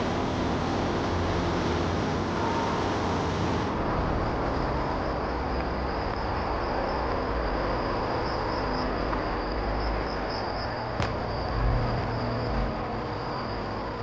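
Insects trilling in a steady high, slightly pulsing band that starts about four seconds in, over a steady rushing background noise with low rumble. A single sharp click comes near the end.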